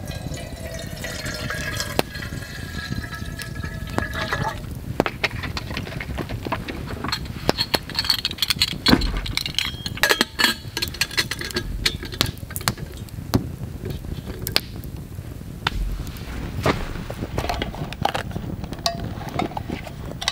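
Water poured from a plastic bottle into a stainless steel cup with a copper-plated base, a slightly rising tone as the cup fills for about four seconds. Then come scattered metal clinks and knocks as the cup is handled.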